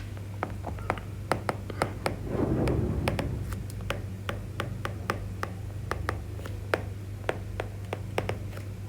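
Pen tapping and scratching on a writing surface as a heading is written: irregular sharp clicks, with a brief rustle about two seconds in, over a steady low hum.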